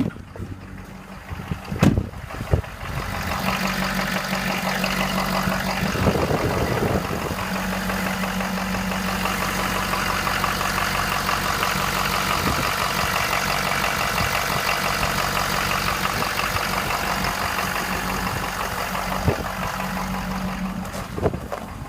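A 2015 6.7-litre diesel engine idling, with a rapid rhythmic knock in its running. It grows louder from about three seconds in.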